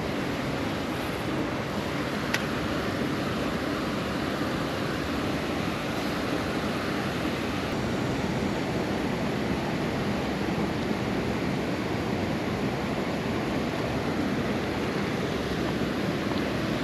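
Steady rush of water pouring through a lake spillway, with a single sharp click about two seconds in.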